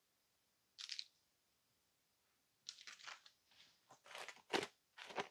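Faint crinkling and rustling of a plastic parts bag being handled, in short bursts: one about a second in, then a run of crinkles that gets busier near the end.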